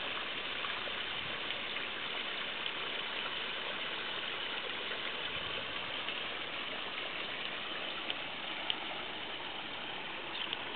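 Water running steadily over rocks into a stone-lined pond, an even rushing sound with a few small clicks late on.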